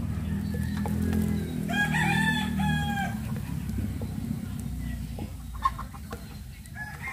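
A rooster crows, a drawn-out call in several pitched steps about two seconds in, and starts crowing again near the end. A single sharp knock, like a wooden spatula against the pan, comes a little past halfway.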